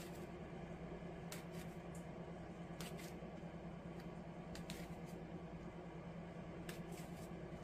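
Pounded, spongy eggplant being torn into strips by hand: faint, scattered soft tearing and squishing sounds over a steady low hum.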